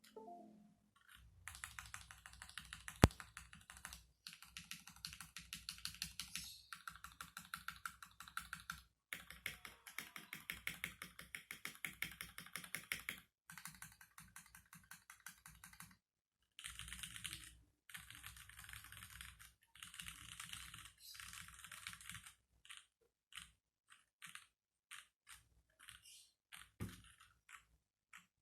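Typing on a Fantech Maxfit61 60% mechanical keyboard with unlubed Cherry MX Black Hyperglide linear switches in a 1.5 mm aluminium plate, with stock keycaps. Fast runs of keystrokes come in bursts with brief pauses, and near the end they slow to single presses.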